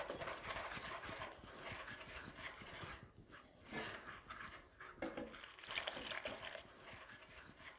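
Wooden spoon stirring dry chickpea flour in a stainless steel bowl as water is trickled in: a faint, uneven scraping.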